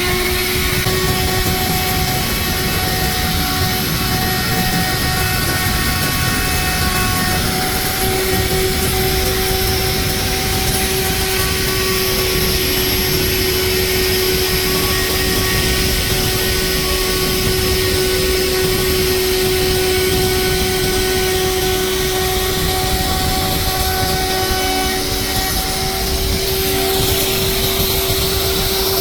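Electric woodworking power tool running steadily: a constant motor whine over a rushing noise of cutting or air.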